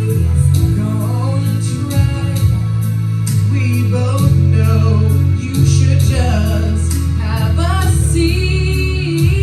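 Music with a steady beat, a heavy bass line and a singing voice.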